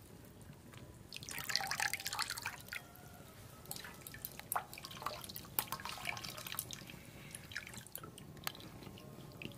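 Water sloshing and dripping as a cloth bundle of fresh chhena (paneer curds) is lifted out of water and squeezed by hand, with a louder spell of splashing about a second in, then whey dripping and trickling into a steel bowl.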